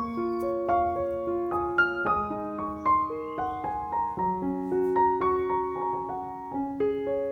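Background piano music: a gentle melody of single notes, roughly two or three a second.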